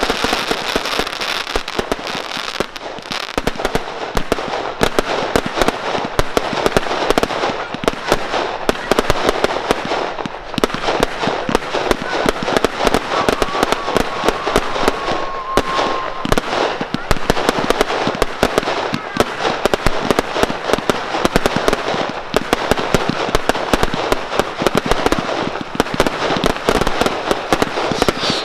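Professional fireworks display: a dense, continuous barrage of bangs and crackling shells with no let-up. A faint whistling tone briefly rises above it about halfway through.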